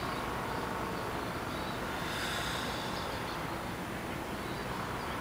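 Steady low background noise, room tone with no distinct event.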